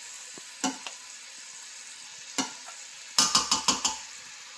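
Ground chicken and a sofrito of carrot, celery and onion sizzling steadily in olive oil in a stainless steel pot. There are a few sharp taps near the start. About three seconds in comes a quick run of knocks and scrapes as a wooden spoon starts stirring the meat in.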